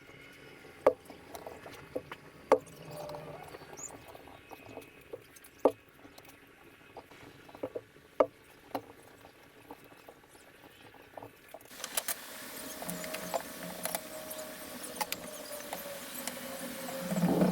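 Scattered sharp taps and clicks with light scratching, as of small cedar workpieces being handled and fitted. About twelve seconds in, a faint steady hiss joins.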